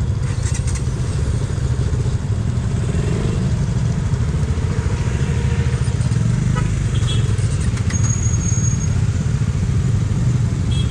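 Motorcycle engine running steadily, a dense low rumble.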